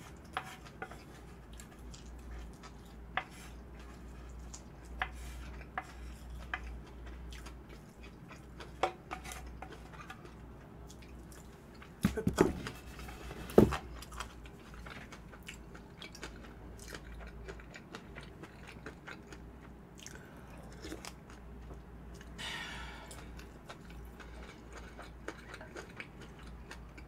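Close-miked chewing of flying-fish-roe bibimbap: soft mouth sounds with many small sharp clicks scattered throughout, and a few louder knocks about twelve and thirteen and a half seconds in.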